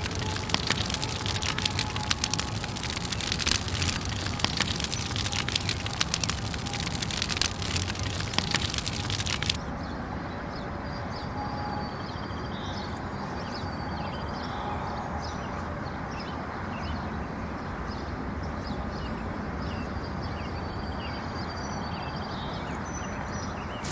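Fire crackling, a dense run of rapid crackles, for about the first nine and a half seconds. It then cuts off suddenly to a quieter, steady outdoor background with faint high chirps.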